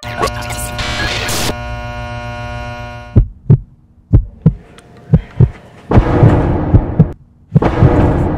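Trailer-style sound effects: a loud impact hit with a ringing drone that fades over a few seconds, then a heartbeat effect of double thumps about once a second, with two loud swells near the end.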